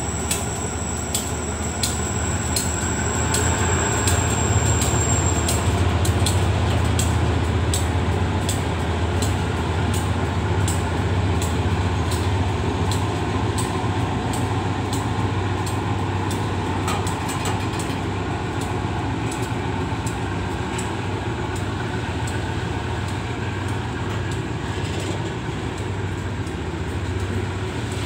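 Freight train of tank wagons hauled by an SRT diesel locomotive passing close by. The locomotive's engine rumble is loudest over the first several seconds, with a thin high whine that stops about five seconds in, and the wagons' wheels clack steadily over the rail joints as they roll past.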